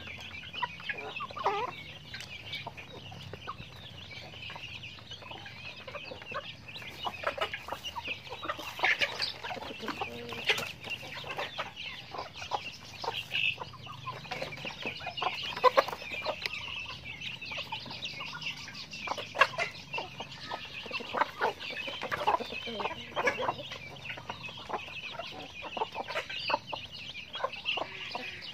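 Backyard flock of hens and chicks clucking and peeping as they forage, with short clucks scattered throughout over a steady high chatter.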